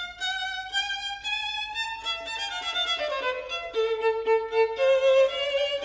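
Background music: a violin playing a slow melody, its held notes gliding from one pitch to the next, climbing over the first two seconds and then stepping back down.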